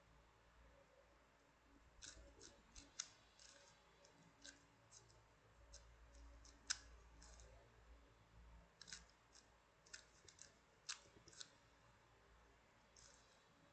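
Faint, irregular plastic clicks from a YongJun O2 Cube V2 puzzle as its inner layers are turned by hand. The clicks start about two seconds in and come scattered, some louder than others.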